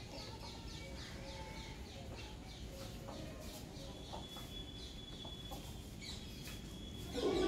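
Small birds chirping in quick, repeated short falling notes, with hens clucking softly underneath. A thin high note is held for a couple of seconds past the middle.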